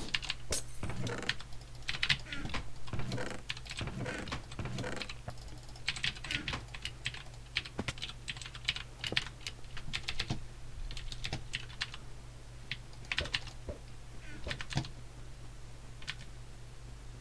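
Typing on a computer keyboard: irregular runs of quick key clicks, dense at first and sparser in the second half, over a steady low hum.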